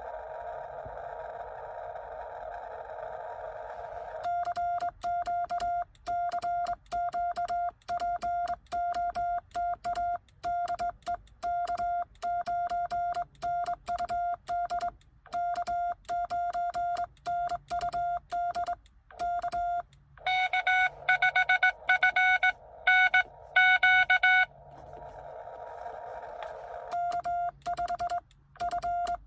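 Morse code (CW) tones from a Xiegu X6100 transceiver. Receiver hiss at first, then a steady tone of about 700 Hz keyed on and off in Morse for about sixteen seconds, the sidetone of the operator sending on a home-made cootie sideswiper. From about 20 s a louder, slightly higher-pitched Morse signal answers for about four seconds; then hiss, and the 700 Hz keying starts again near the end.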